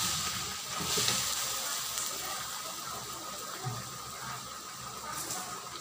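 Pork, liver and vegetables sizzling and simmering in a wok: a steady hiss, a little louder in the first second while a spatula stirs the pan.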